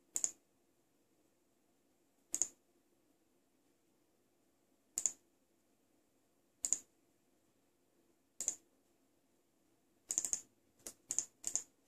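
Sharp clicks at a computer's controls: five single clicks about two seconds apart, then a quick run of four near the end, over a faint steady hum.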